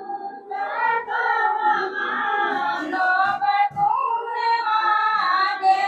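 Women singing a high, drawn-out melody with long held notes that slide between pitches.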